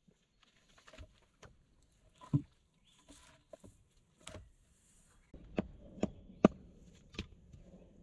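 Logs being handled and set down: scattered wooden knocks and thuds, a dull thud about two seconds in and a run of four sharper knocks in the second half.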